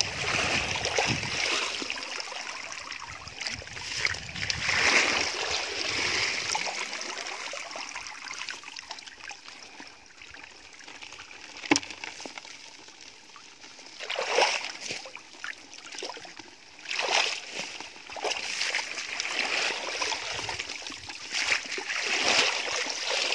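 Hands digging through wet mud and water-plant roots in shallow water, with squelching and splashing that comes in uneven bursts. A single sharp knock sounds about halfway through.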